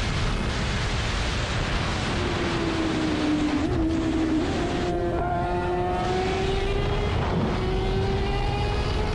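Sport motorcycle running at high road speed, a heavy rush of wind noise over its engine note, which holds and then climbs slowly as it pulls.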